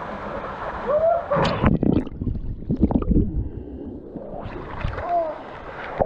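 A person jumping from a rock ledge into a small waterfall's plunge pool: loud, irregular splashing and churning water from about a second and a half in, lasting around two seconds, over the steady rush of the waterfall. The water slaps close against the microphone at the surface.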